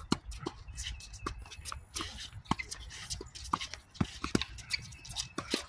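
Tennis rally: racquets striking a tennis ball and the ball bouncing on a hard court, a quick irregular run of sharp pops, with players' footsteps on the court between the shots.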